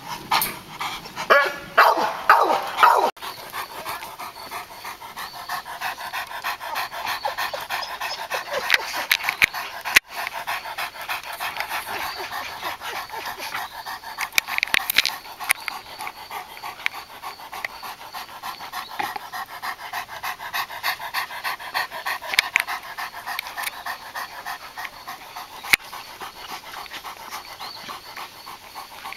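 Tosa Inu male panting quickly and evenly while tied with the female after mating, with a few louder bursts in the first three seconds.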